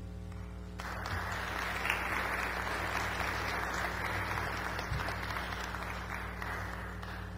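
Audience applauding, starting about a second in and easing off slightly toward the end.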